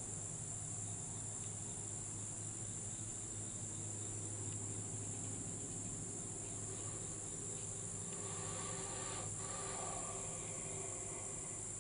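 Steady, high-pitched chorus of insects droning without a break, over a low steady hum.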